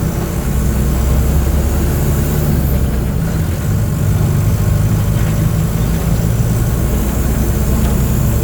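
Diesel engine of a Mercedes-Benz OF 1722M city bus running at a steady, even speed, a low drone with no rise or fall in pitch.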